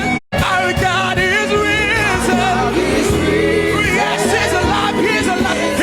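Church choir singing a gospel song over instrumental backing. The sound cuts out completely for a split second just after the start.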